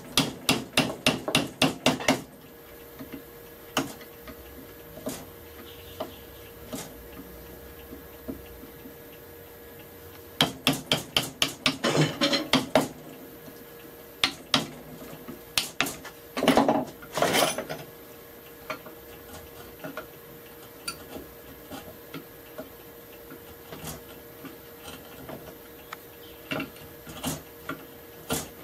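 Hammer taps driving a chisel into the hardwood body of a wooden rebate plane while its mouth is being trimmed. The taps come in two quick runs of about five a second, one at the start and one about ten to thirteen seconds in, with scattered single knocks in between and a short, denser rasping stretch around seventeen seconds.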